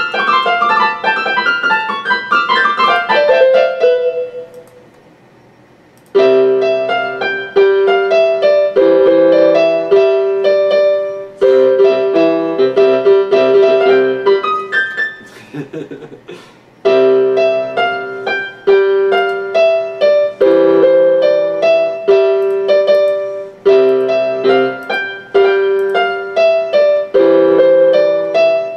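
Electronic keyboard played with a piano voice. A fast descending run fades out, and after a pause of about two seconds a repeating pattern of chords over a steady low note begins, with one brief break partway through.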